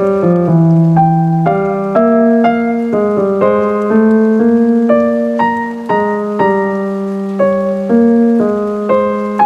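Piano playing a slow melody of single notes and chords, struck about twice a second, each note ringing and fading before the next.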